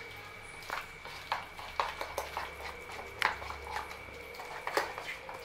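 Scattered sharp crackles and pops, several a second and uneven, from cooking oil heating in a nonstick kadhai on a gas stove, nearly hot enough for frying. A faint steady high tone runs underneath.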